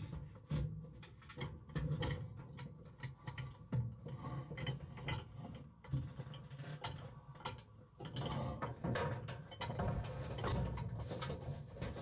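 Microwave oven running after its blown high-voltage fuse was replaced: a steady low hum with scattered clicks and knocks over it, growing somewhat louder and noisier near the end.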